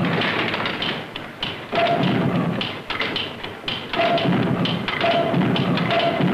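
Diesel's 1894 experimental engine running slowly, a heavy thud about once a second, with film music over it.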